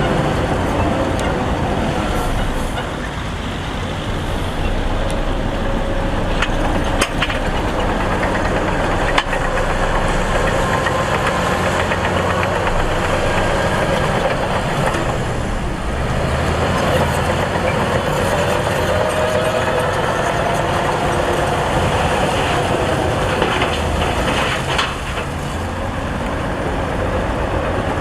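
Heavy diesel earthmoving machinery running steadily under load, with a couple of sharp knocks.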